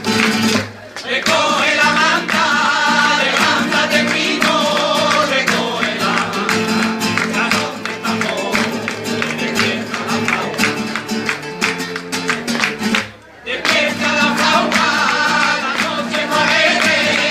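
Flamenco-style music: plucked guitar with a singing voice, dropping out briefly about a second in and again about three-quarters of the way through.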